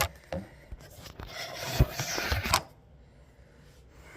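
Rubbing, rustling noise for about a second and a half, with a few dull knocks in it, after some scattered light clicks.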